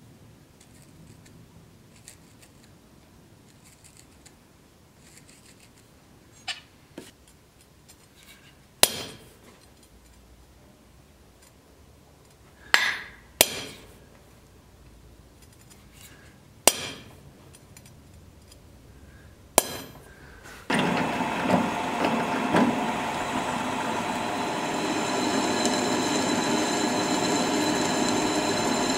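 Hammer striking a centre punch on a leaf spring steel knife blank lying on an anvil: several sharp, ringing metallic strikes a few seconds apart, marking hole positions in the tang. About two-thirds of the way through, a drill press starts and runs with a steady whine, drilling through the tang.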